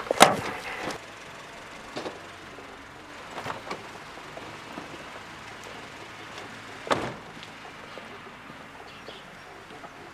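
Car door clunks: a loud one at the very start and another about seven seconds in, with a few smaller knocks between.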